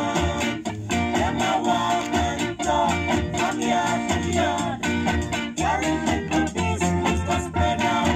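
An early reggae 7-inch vinyl single playing on a turntable: singing over guitar, with a bass line pulsing in a steady beat.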